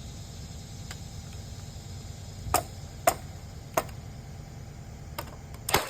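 A few sharp knocks and clicks, irregularly spaced, the loudest near the end, over a steady low rumble.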